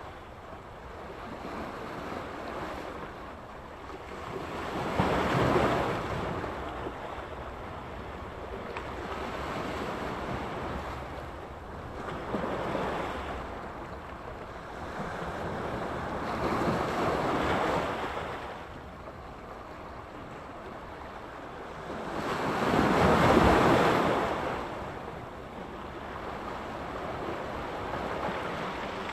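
Sea surf: waves breaking and washing on the shore in slow swells every few seconds, with one larger wave breaking a little past the middle, and some wind on the microphone.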